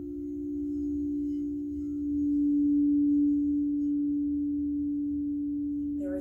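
Frosted crystal singing bowls played with a mallet, ringing a steady low tone that swells louder about two seconds in.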